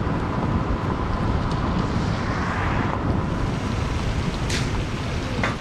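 Steady rumble of a car driving, with wind buffeting the microphone, and two brief high-pitched squeaks near the end.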